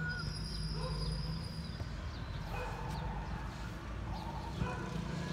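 Short animal calls, several in a few seconds, over a steady low hum.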